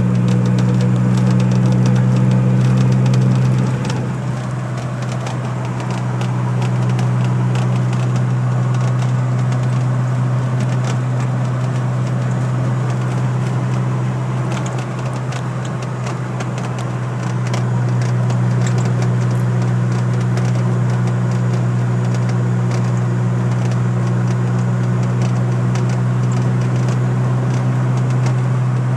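DeLorean DMC-12 giving off a steady low drone, the unexplained weird noise the owner is recording. It eases off a little twice.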